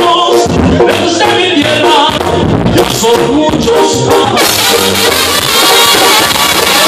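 Live banda music: a male singer sings into a microphone over the band's brass, drums and electric bass, with the full band growing brighter and louder about four and a half seconds in.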